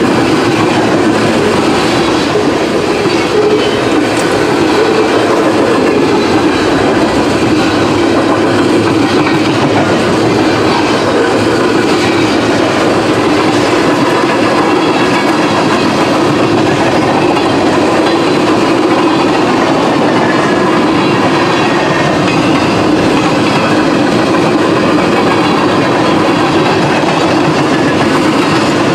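A train's cars rolling steadily past at close range, wheels clattering over the rails without a break.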